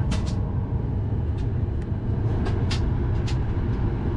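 Steady low rumble inside a Boeing 737 MAX 8's cabin at the gate, from the aircraft's air and ventilation systems, with several light clicks and taps over it.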